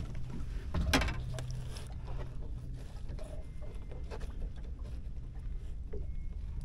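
A tautog being handled and laid flat on a plastic cooler lid for measuring, with a sharp knock about a second in, over a steady low rumble.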